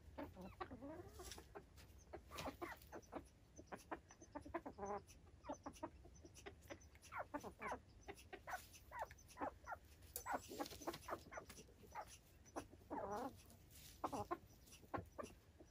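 Silkie chickens clucking quietly in short, scattered calls, with a couple of longer drawn-out calls, one a few seconds in and one near the end.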